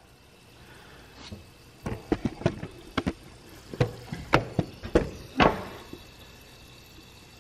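Pressurised fuel leaking from a loose line fitting on a 2002 Subaru WRX's fuel rail: a faint hiss with a run of irregular sharp ticks through the middle few seconds. The sound is the sign of a fitting worked loose during the injector install.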